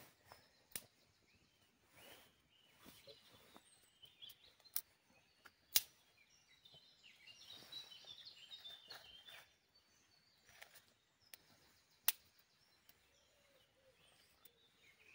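Quiet forest ambience with birds chirping faintly, busiest in the middle. A few sharp isolated clicks and snaps sound, the loudest about six seconds in and about twelve seconds in.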